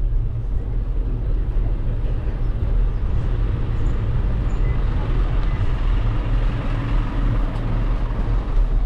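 Steady low rumble of wind and road noise on a GoPro HERO 12's microphone as the bicycle rolls along a paved street.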